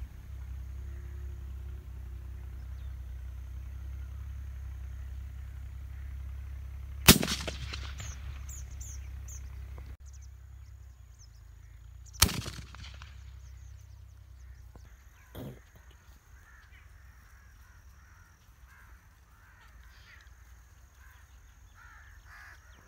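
Two gunshots about five seconds apart during a dove hunt, each with an echo trailing off. Birds call in short repeated notes after the first shot and through the later part.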